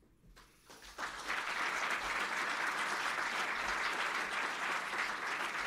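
Audience applauding, starting about a second in and then holding steady.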